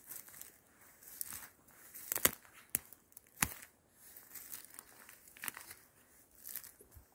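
Footsteps through dry leaf litter and undergrowth on a forest floor, rustling and crunching about once or twice a second, with a few sharp twig snaps in the middle.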